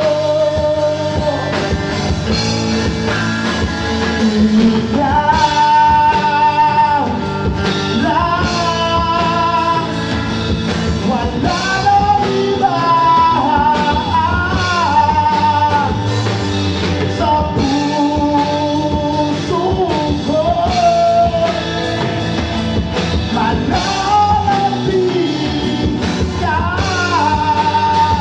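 Live band playing a song, a man singing the lead melody over acoustic and electric guitars.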